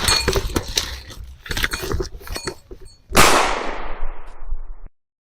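A rapid clatter of sharp knocks and clinks, then about three seconds in a sudden loud crash that dies away over nearly two seconds and cuts off abruptly.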